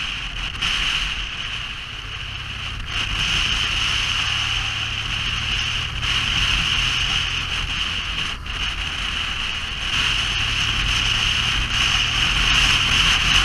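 Steady engine hum under a constant rushing noise, as from a vehicle under way.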